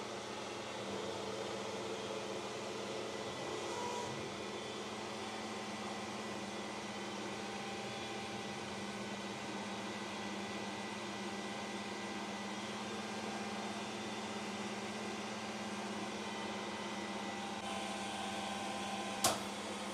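CNC mill cutting thin sheet metal with a 6 mm high-speed-steel endmill under flood coolant: a steady machine hum with cutting noise. A single sharp crack sounds near the end.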